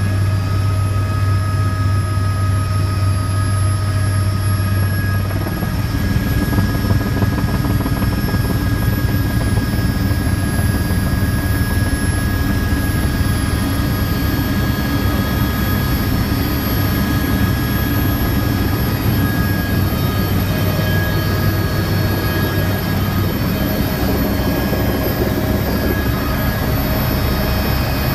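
Helicopter heard from inside the cockpit: turbine whine with steady high tones over the drone of the rotor, as it comes in low to land. About five seconds in, the low steady drone changes to a rougher rumble.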